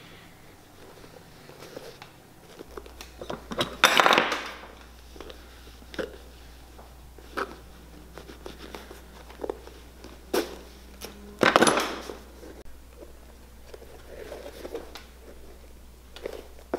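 Hand-stitching the leather collar of a Clarks Wallabee boot: small clicks and taps of the needle working through the leather, and twice, about four and eleven seconds in, the thread pulled through with a drawn-out hiss lasting about half a second.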